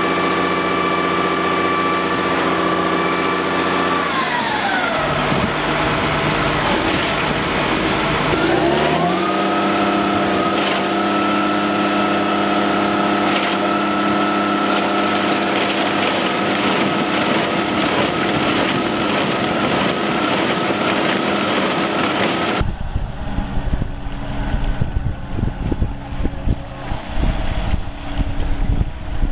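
Diesel engine of a tracked tractor carrying an excavator-arm ditch cleaner running steadily. Its note drops about four seconds in and climbs back a few seconds later, then holds. Near the end, after a cut, wind buffets the microphone over the engine of a wheeled excavator.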